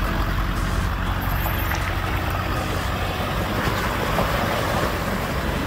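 A 2000 Ford 7.3L Powerstroke V8 turbo diesel van engine running steadily as the van wades through a shallow creek, with water splashing and rushing around the tires.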